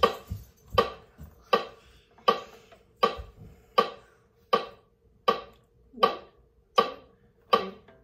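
Metronome clicking steadily at 80 beats per minute, about eleven even clicks, each with a short ringing decay.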